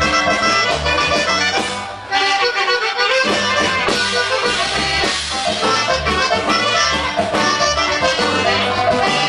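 Norteño band playing a huapango, the accordion leading over a bouncing bass line, with a brief drop in the music about two seconds in.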